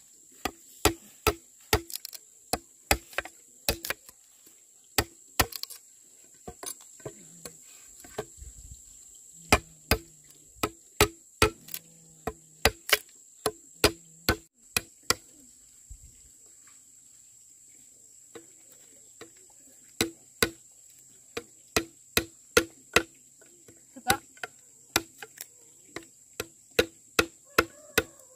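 Repeated sharp chopping strokes, a blade striking wood, coming in irregular runs of a few a second with a pause in the middle. A steady high insect trill runs underneath.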